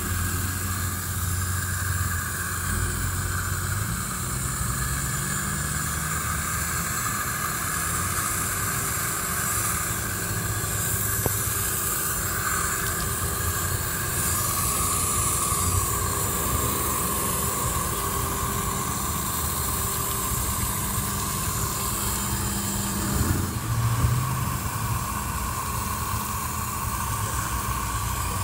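Water spraying from a garden hose nozzle set to its flat spray onto potted plants: a steady hiss of spray hitting soil and leaves, over a low steady hum.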